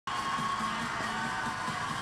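Music with a studio audience cheering, starting abruptly at the very beginning.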